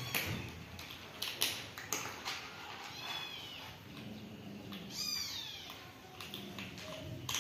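Cats eating dry kibble from a plastic tray, with many short crunches and clicks of pellets. A cat meows twice, about three seconds in and again about five seconds in, each call high and falling in pitch.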